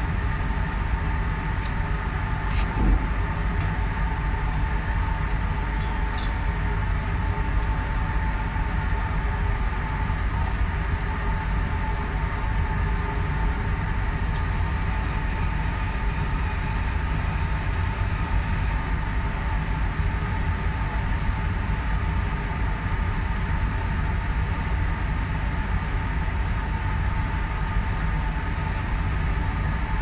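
Powder coating booth equipment and electrostatic powder gun running while spraying enamel powder: a steady, unbroken low rumble with a constant hum over it. A single knock about three seconds in.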